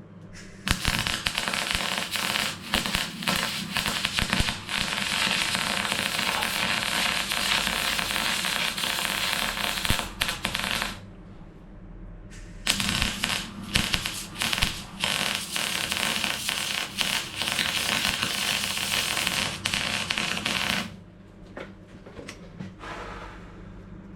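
Welding arc crackling and spitting as stitch welds are run along a steel sill panel, in two long runs of about ten and eight seconds with a short pause between.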